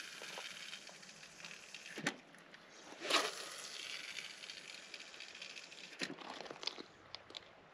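Handling sounds of casting and retrieving a lure on a spinning rod and reel: a few scuffs and knocks, the loudest about three seconds in, over the faint whir of the reel winding.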